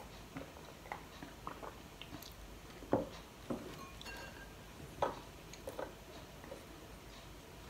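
Faint eating sounds: sipping broth and chewing, with a few soft knocks of dishes on the table, the loudest about three seconds in and again about five seconds in.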